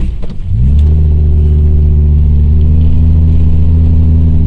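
A lifted two-wheel-drive Ford Econoline van's engine under full throttle, pushing through soft sand with the rear locker engaged, heard from inside the cab. Just after the start the engine note dips briefly, then climbs back within a second and holds steady and loud.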